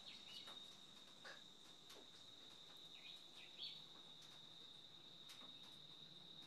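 Faint, steady high-pitched insect trill, with a few short falling bird chirps and faint clicks as hands press potting soil.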